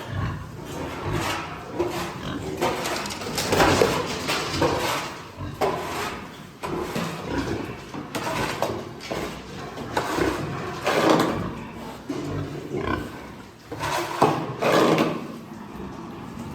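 Farm pigs in a piggery grunting and squealing: loud, irregular, overlapping calls, the loudest about four, eleven and fourteen seconds in.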